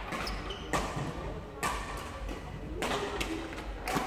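Badminton rally: rackets striking the shuttlecock four times, about once a second, each hit a sharp crack that rings in a large sports hall, over faint chatter.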